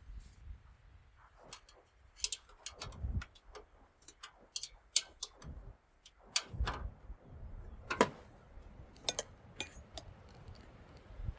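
Irregular sharp clicks and a few dull knocks, like hard parts being handled, with no motor running.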